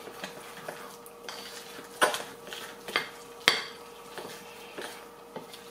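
Metal fork stirring muffin batter in a glass bowl, scraping and clinking against the glass, with three sharper clinks about two, three and three and a half seconds in.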